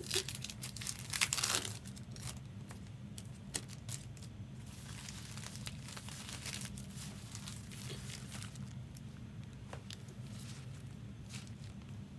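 Foil trading-card pack wrappers crinkling and tearing open in irregular bursts, busiest in the first second or so.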